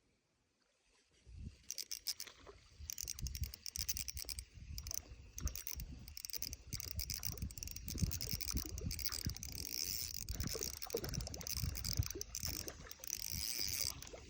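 Spinning reel being wound in, a rapid run of clicks with rustling and knocks, starting about a second in after near silence.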